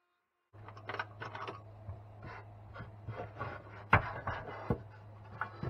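Hands rubbing and brushing over a freshly CNC-cut mahogany serving tray and shifting it on the machine bed: wood scraping and chips rustling, starting about half a second in, with two sharp wooden knocks about four seconds in, over a low steady hum.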